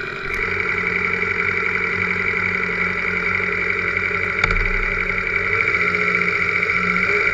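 Motorcycle engine idling steadily close by, with a single knock about halfway through.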